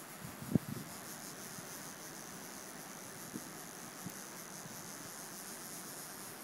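Fast river rapids rushing in a steady hiss, with a high, even hiss above it. A single sharp knock sounds about half a second in, with a few faint ticks later.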